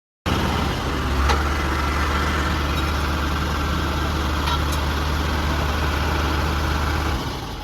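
Heavy truck engine idling steadily with a deep, even drone and a few faint clicks; it drops away near the end.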